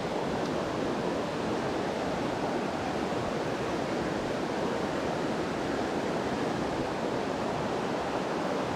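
Steady rush of a mountain trout stream flowing over rocks, an even, unbroken water noise.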